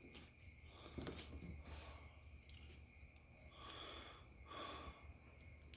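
Faint scraping and a few light clicks from a thin metal shim being worked into the back of a lock cylinder while a key is pushed in and pulled out, with a sharper click near the end.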